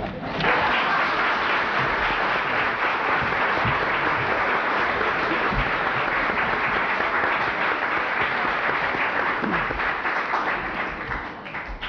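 Audience applauding, a steady dense clapping that fades away near the end.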